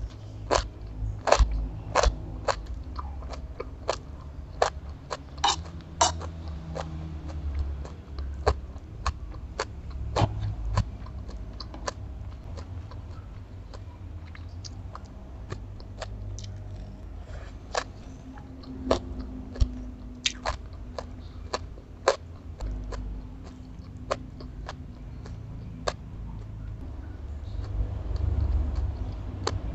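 Close-miked chewing and crunching of stir-fried bean sprouts and crab roe, with many sharp clicks and taps of eating. The bean sprouts are cooked only half-done, so they crunch.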